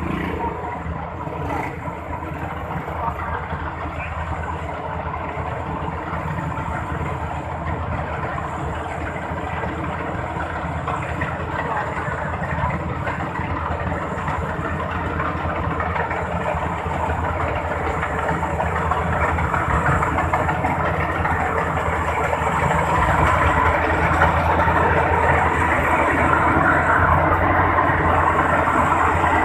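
Rice combine harvester running, a steady engine drone that grows gradually louder over the stretch.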